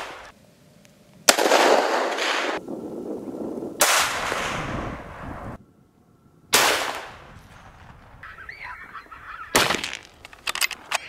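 Four rifle shots at coyotes, roughly two and a half seconds apart, each a sharp crack followed by an echo rolling away for a second or two. Between the third and fourth shots come short wavering high calls.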